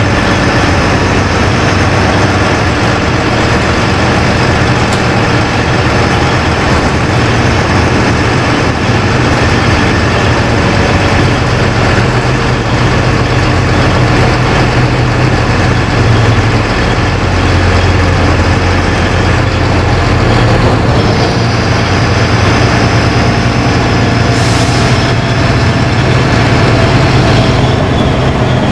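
LiAZ-5292.20 city bus running under way, heard on board: a steady low diesel engine note whose pitch shifts in the second half, with a short hiss of compressed air about three-quarters of the way through.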